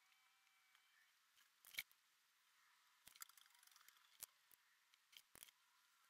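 Near silence: faint room tone with a few soft, short clicks scattered through it.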